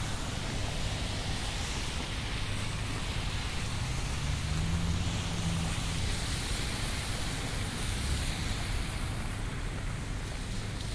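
Rainy city street ambience: a steady hiss of rain and wet-road traffic with a low rumble of engines underneath, and a faint low hum that comes and goes around the middle.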